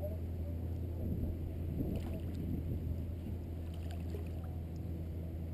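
Water lapping and lightly splashing around a float tube as swim fins kick at the surface, over a steady low rumble.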